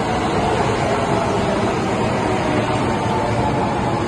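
Subway train moving along the opposite platform of an underground station: a steady rumble of wheels on the rails, with a whine that grows stronger near the end.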